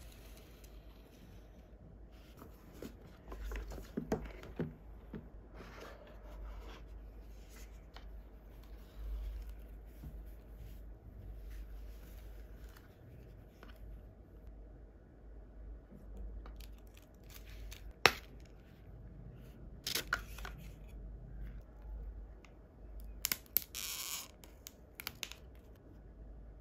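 Handling of a cardboard gift box and its paper packaging: soft rustling, scraping and light taps, with one sharp click about two-thirds of the way in and louder rustles near the end.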